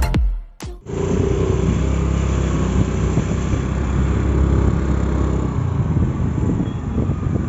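The tail of electronic intro music ends in the first second. Then a motorbike's engine runs steadily as it is ridden along a road, heard from the rider's seat with a constant hum and road noise.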